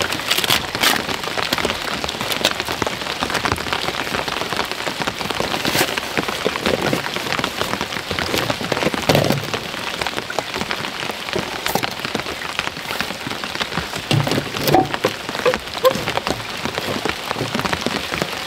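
Steady rain falling, with many sharp individual drops striking close by.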